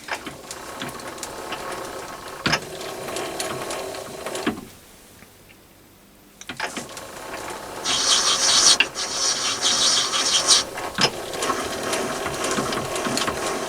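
Myford ML7 lathe's change gears and lead screw clattering as the spindle is wound round by hand during a screw-cutting pass, the threading tool taking a 5 thou cut. The turning stops for about two seconds near the middle, then carries on, with a bright hiss for a couple of seconds and a few sharp clicks.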